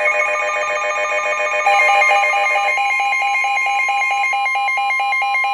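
Emergency alert tones for a flash flood warning: several electronic alarm tones pulsing rapidly over one another. A new pulsing layer comes in about a second and a half in, and from about halfway a steady single tone sounds under the pulses.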